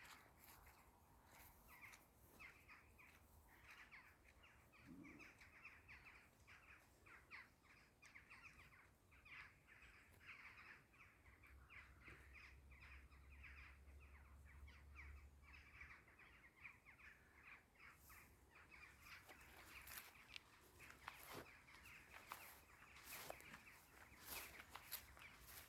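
Faint outdoor ambience of distant bird calls, with crunching footsteps on a path growing more frequent in the last several seconds.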